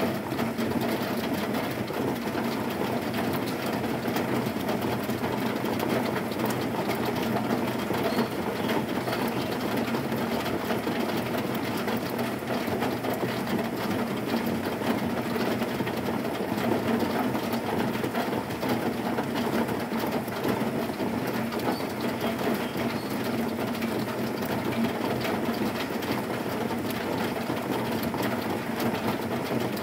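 Heavy rain falling on a corrugated zinc roof: a dense, steady patter of countless drops on the metal sheets, with no thunder.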